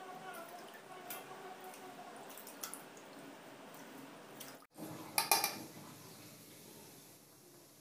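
Hands swishing chopped vegetables in a steel bowl of water, with faint sloshing and dripping. A few clinks of the steel bowl come about five seconds in, as it is handled.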